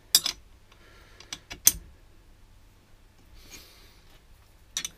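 Sharp metal clinks and taps of steel bearing-puller parts being fitted together: the crossbar, long bolts and threaded spindle knocking against each other and the carrier. A few quick clicks at the start, the loudest clink about a second and a half in, and another cluster near the end.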